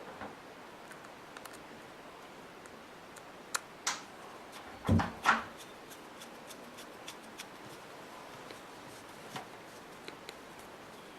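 Small clicks and ticks of a precision screwdriver and a tiny hinge screw being worked into a metal sunglasses hinge, with two sharper clicks a little before the middle and a louder double rustle of handling about five seconds in.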